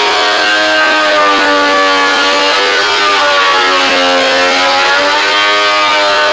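Electric motor of a woodworking power tool running loud and steady, its pitch sagging about four seconds in and climbing back as it takes a cut.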